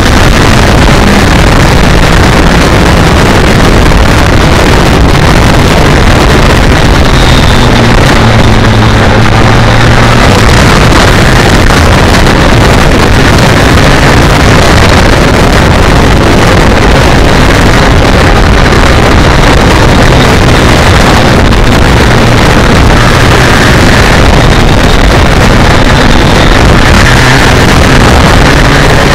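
BMW K1200R Sport's inline-four engine running at steady cruising revs while riding, heard from on the bike under loud, constant wind rush on the microphone.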